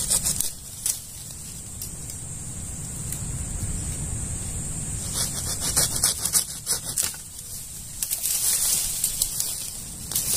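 Dry twigs and leaf litter crackling and rustling in clusters of sharp clicks, heaviest in the second half, over a steady low rumble of wind on the microphone.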